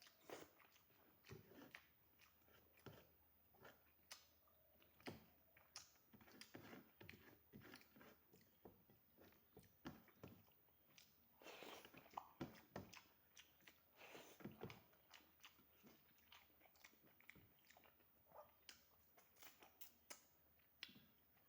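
Faint close-up chewing of a rice-and-vegetable meal: irregular wet mouth smacks and soft crunches, a few each second.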